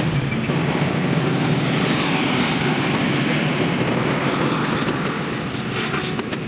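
Woodworking power tool running steadily, a loud even machine noise whose pitch drifts slowly, with rapid sharp clicks coming in near the end.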